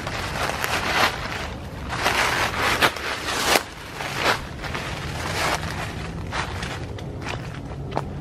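Footsteps crunching and rustling through dry fallen leaves on a wooded slope, an uneven stride of roughly one step every half second to a second.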